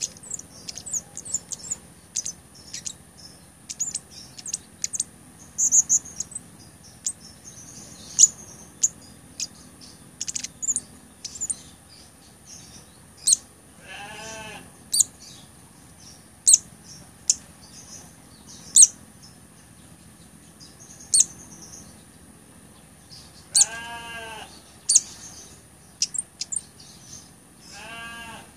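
Blood-breasted flowerpecker (cabai gunung) calling and twittering in a quick run of very high, thin, sharp notes. Three times, once midway and twice near the end, a lower, longer call with several pitches stacked together cuts in.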